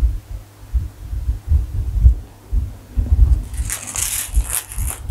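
Handling noise from a leather crossbody bag: irregular low thumps as it is moved on a table, then about three and a half seconds in a short burst of rattling as it is turned over and its metal chain strap clinks.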